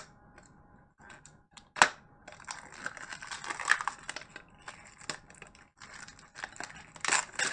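Packaging of a Pokémon mystery card cube being opened by hand: sharp clicks and cracks, then a stretch of crackling and crinkling as the wrapping and box are worked open.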